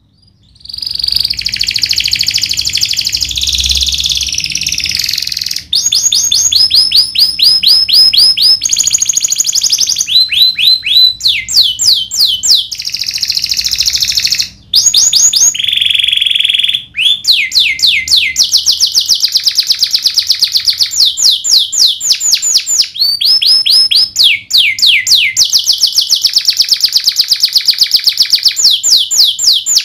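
Domestic canary singing a long rolling song: fast trills of repeated down-slurred notes in changing phrases, with a few buzzy stretches and brief pauses about 6, 15 and 17 seconds in.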